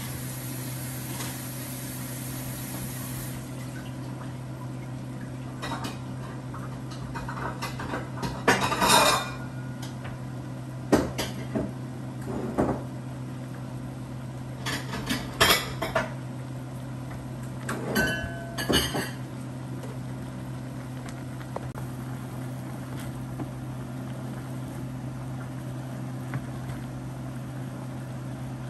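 Kitchen clatter at the stove: several groups of sharp clinks and knocks of metal pots, pans and utensils over a steady low hum. Steak sizzling in a frying pan is heard for the first few seconds, with the pot of noodles boiling.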